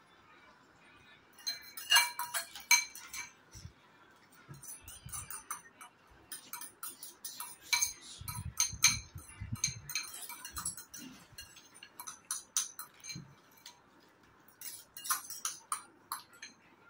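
Eating utensils clinking and scraping against ceramic bowls of noodles in scattered, irregular clicks, the loudest about two seconds in, with a few low knocks in the middle.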